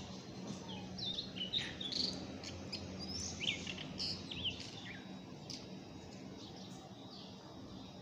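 Birds chirping in the background: a lively run of short, quick chirps and twitters in the first half, thinning out toward the end, over a steady low hum.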